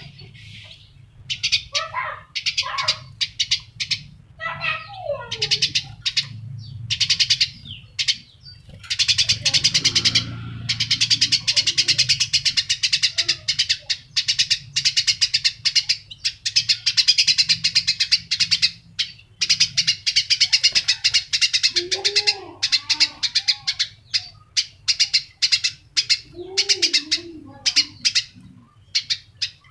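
A small bird chirping in long runs of rapid, high chirps, with a few lower, rising-and-falling calls in the second half.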